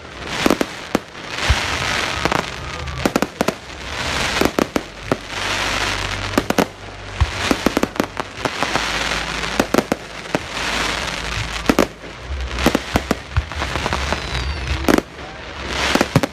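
Fireworks going off in quick succession: many sharp bangs of bursting shells, each followed by a second or so of crackling from glittering stars.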